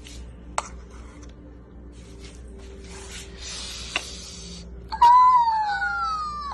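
A long cry, like an animal's call, sliding down in pitch, about five seconds in. Before it, two sharp clicks over faint steady tones.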